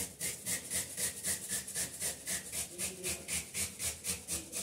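White radish (mooli) grated on a hand grater: a steady run of rasping strokes, about four a second.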